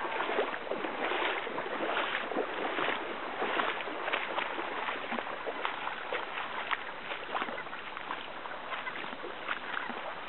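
Shallow creek water splashing and trickling, with many small irregular splashes over a steady wash, a little louder in the first few seconds.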